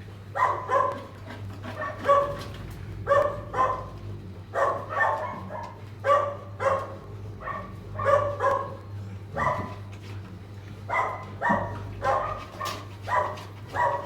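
A dog barking again and again, short barks often coming in pairs, with a steady low hum underneath.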